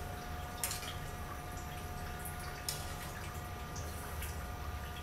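Wet stirring of glass noodles in simmering broth with a slotted metal spatula, with two sharp clicks of the spatula against the pan, one early and one near three seconds in, over a steady hum.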